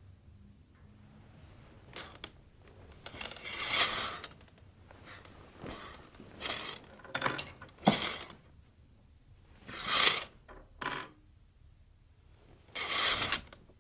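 A curtain being drawn along its rod: a series of short swishes with the rings or hooks scraping along the rail, some with a thin metallic ring, the loudest about two thirds of the way through.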